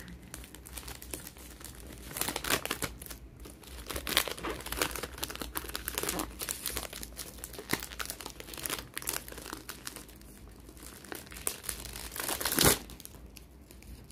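Crinkling and rustling of clear plastic wrap and paper as a small cardboard box is handled and unwrapped, irregular throughout, with one louder rustle near the end.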